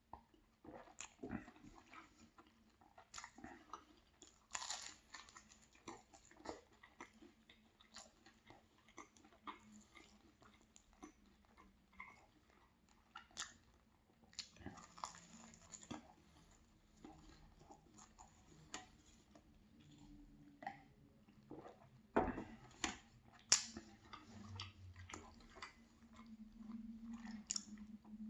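Close-miked chewing and biting of a hazelnut-spread pastry: many small, irregular mouth clicks and crunches, a few louder ones near the end.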